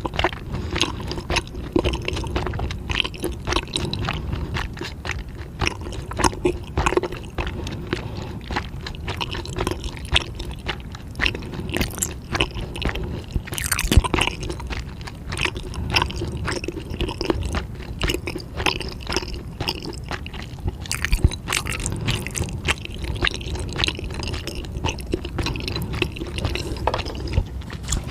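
Person chewing food up close, with many small irregular crunches and wet squishing sounds.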